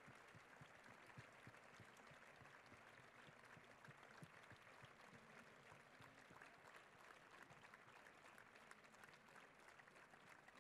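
Faint, distant applause from a large open-air audience: a low, even patter of many hands clapping.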